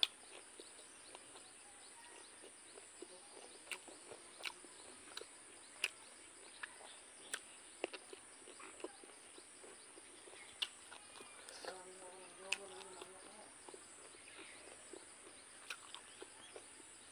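Close-up eating sounds: chewing and lip smacks as sharp clicks every second or so while blood sausage and rice are eaten by hand, over a steady high insect drone. A short pitched hum comes about twelve seconds in.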